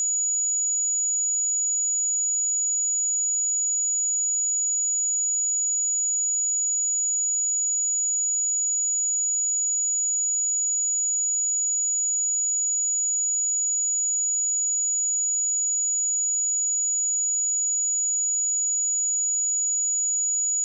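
A continuous pure sine-wave test tone at 6861 Hz, a single steady high-pitched whistle that holds one pitch and level without a break.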